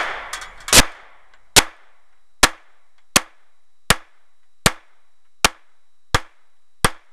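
Ruger SR45 .45 ACP semi-automatic pistol firing a steady string of about ten shots, roughly one every three-quarters of a second, each a sharp report with a short ringing tail.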